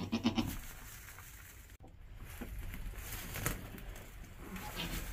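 A goat gives one short bleat right at the start, about half a second long.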